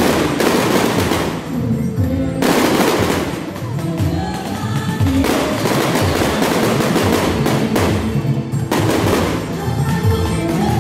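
Aerial fireworks going off in rapid volleys, a dense string of bangs and crackles, with music playing underneath.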